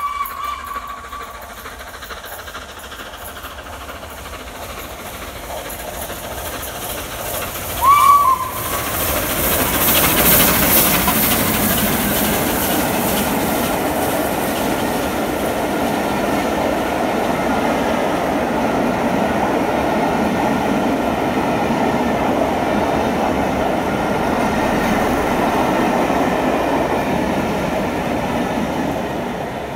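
The LNER A3 steam locomotive Flying Scotsman sounds its whistle: a faint short note at the start and a loud short blast about eight seconds in. The train then runs through at speed, a loud steady rush of locomotive and coaches on the rails that eases off near the end.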